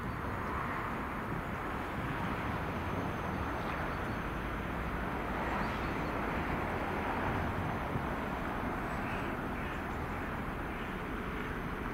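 2TE25KM two-section diesel locomotive approaching at the head of a freight train, its diesel engine running steadily.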